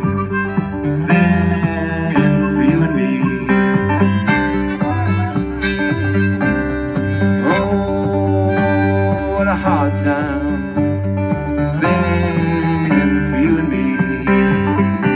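Live band playing an instrumental passage: a harmonica lead with sliding, bent notes over acoustic guitar, electric bass and congas.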